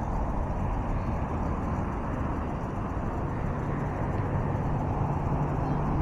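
Steady rumble of urban traffic, with a low engine hum coming up about halfway through.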